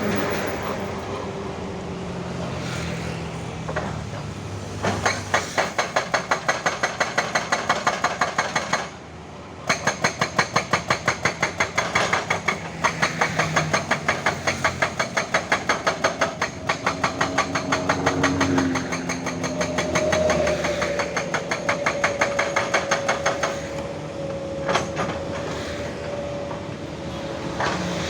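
Hydraulic rock breaker on a Hyundai excavator hammering rock, a rapid even pounding of about four to five blows a second that pauses briefly and then resumes, over the excavator's diesel engine running. The hammering stops a few seconds before the end, leaving the engine.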